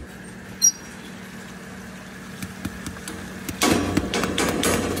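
Commercial oven running with a steady low hum, a small metallic click about a second in. Near the end comes a louder stretch of clattering and hiss as the oven is opened on the roasting pork shoulders.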